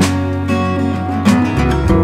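Background music: acoustic guitar strumming over steady sustained chords.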